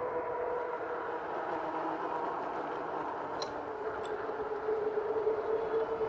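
A 2018 RadMini electric fat-tyre bike rolling at speed on pavement: a steady whine from the rear hub motor over tyre and wind noise. The whine grows louder in the second half as the motor works up a slight grade.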